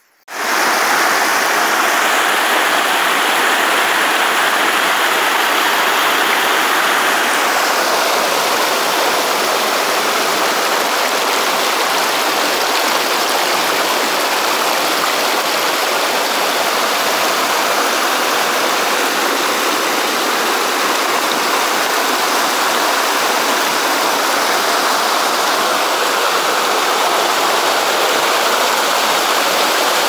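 Mountain stream rushing over rocks and small cascades: a steady, loud rush of water that starts abruptly about half a second in.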